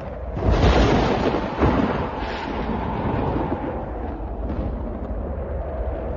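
A thunderclap cracks about half a second in, with a second crack around a second and a half, then rolls on as a long rumble. Beneath it runs the steady howl of snowstorm wind.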